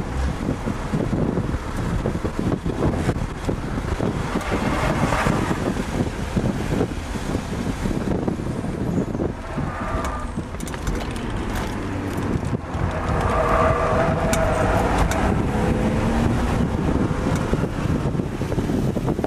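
BMW E36 M3's straight-six engine heard from inside the cabin under hard track driving, its pitch rising and falling as the car accelerates and lifts through corners, over a constant rush of road and wind noise.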